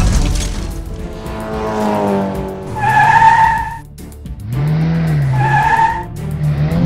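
Cartoon sound effects of a runaway race car: an engine revving up and down, with tires screeching twice as it swerves out of control, over background music.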